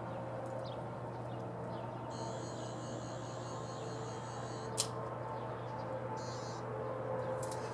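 Steady low hum under background hiss. A faint high pulsing sound runs for about two and a half seconds from two seconds in, a single sharp click comes just before five seconds, and a shorter high pulsing sound follows about a second later.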